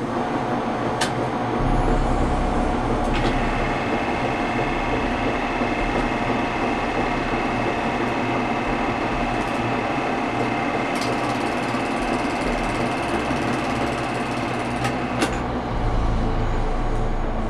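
Film projector running: a steady mechanical whirr and clatter with a thin high whine through the middle, and a few sharp clicks.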